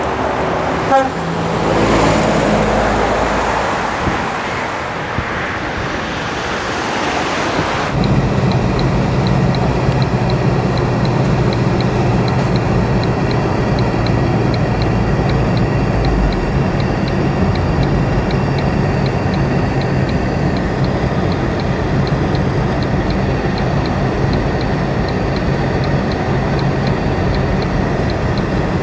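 Convoy trucks passing on a motorway: engine and tyre noise swells and fades. About eight seconds in, it cuts to a steady low engine drone heard from inside a vehicle riding in the convoy, with a faint regular ticking above it.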